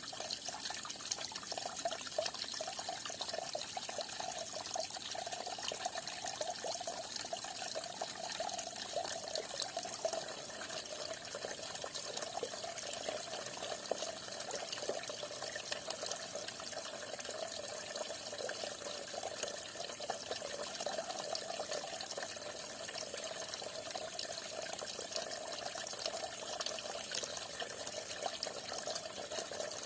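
Falling water splashing steadily, a continuous trickling, pattering stream with no pauses.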